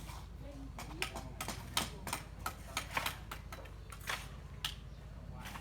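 An irregular run of sharp taps and knocks, about a dozen over a few seconds, from hand-tool work, over a low steady hum.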